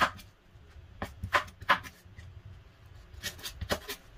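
A cleaver slicing ginger into strips on a bamboo cutting board. Each stroke knocks sharply against the wood, in short irregular runs: one at the start, three about a second in, and four more near the end.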